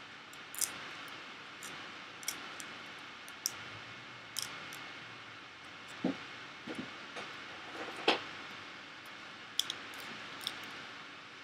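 Scattered small crackles and clicks of aluminium foil being crimped and pressed around fingertips, over a steady low hiss, with a sharper knock about eight seconds in.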